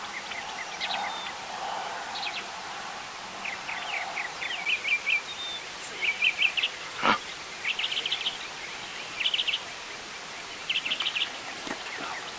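Outdoor birds chirping: quick runs of short high notes, repeated every second or so, with one sharp click about seven seconds in.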